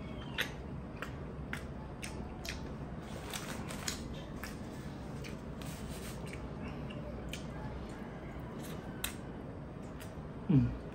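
Close-up eating sounds: scattered wet smacks and clicks of a mouth sucking and chewing tuna eyes and fish-head meat eaten by hand. A short falling hum from the eater about ten and a half seconds in.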